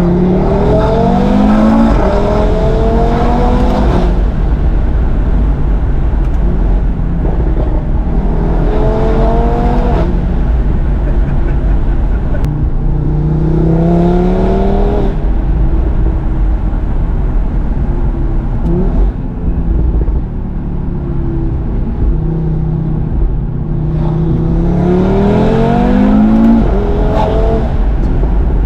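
Audi RS3's turbocharged 2.5-litre five-cylinder (DAZA engine) under hard acceleration: revs climb in four pulls, dropping back between them, with steadier running in the gaps.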